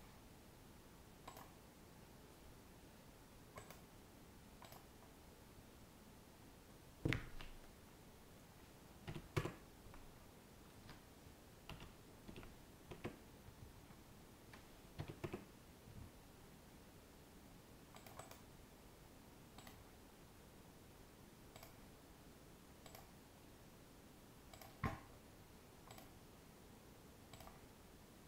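Computer keyboard keystrokes and mouse clicks, scattered and irregular, with a few louder taps among the faint ones.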